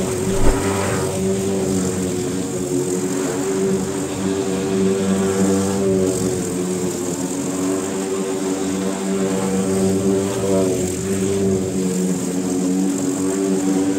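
Petrol walk-behind rotary lawn mower engine running steadily while cutting grass, with a brief thump about half a second in.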